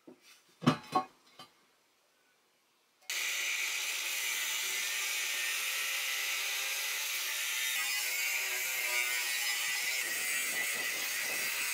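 A couple of sharp knocks in the first second. Then, about three seconds in, an angle grinder's cutting disc bites into a steel beam and grinds steadily, a loud, high hiss that keeps going.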